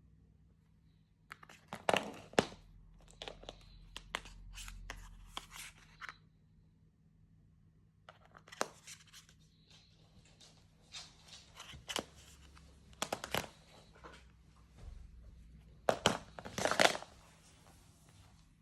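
Irregular rustling, crinkling and clicking handling noises in scattered clusters, loudest about two seconds in and again near the end, over a faint steady low hum.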